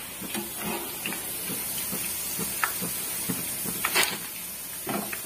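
Boondi sizzling steadily as it deep-fries in hot oil, with scattered light clicks and one sharper click about four seconds in.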